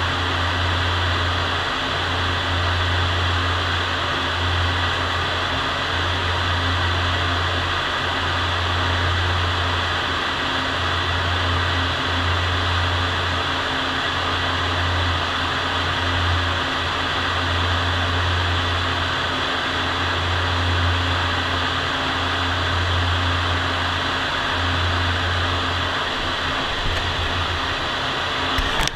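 Spray booth ventilation fan running: a steady rush of moving air with a low hum that swells and dips every second or two.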